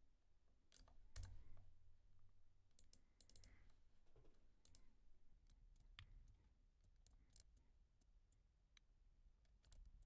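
Faint computer mouse clicks at irregular spacing over near-silent room tone.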